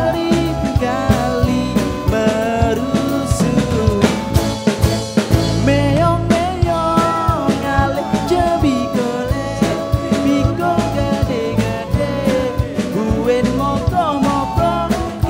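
Band playing an instrumental passage: a drum kit keeps a steady beat under a melodic lead line that bends and slides in pitch.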